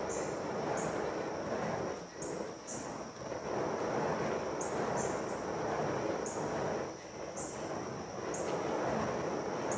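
Burning wicks of a spinning polypro fire hoop whooshing through the air, the rushing swelling and easing every second or so as the flames pass. A steady high insect trill goes on underneath.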